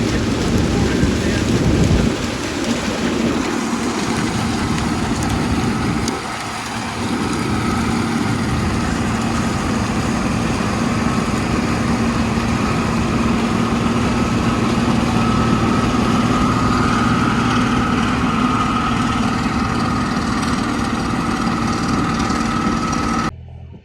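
Combine harvester running steadily while cutting downed corn: a continuous engine drone with a steady whine above it. It dips briefly about six seconds in and cuts off abruptly near the end.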